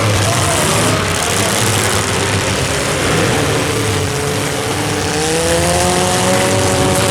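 Engines of several compact demolition derby cars running and revving at once, their pitches rising and falling over a loud, steady din.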